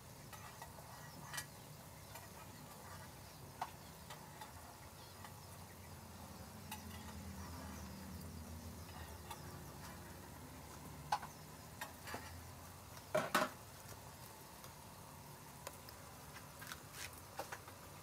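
Mushrooms in oyster-sauce gravy simmering in a nonstick pan with a faint steady bubbling, stirred with a spatula that clicks and knocks against the pan now and then. The loudest knocks come in a quick cluster a little past two-thirds through.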